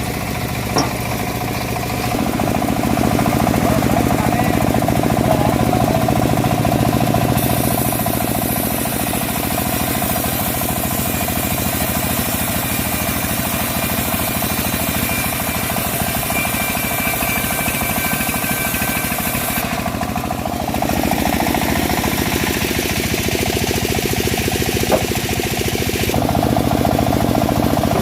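Homemade engine-powered bandsaw mill running steadily while sawing a teak log, with a high hiss added between about seven and twenty seconds in.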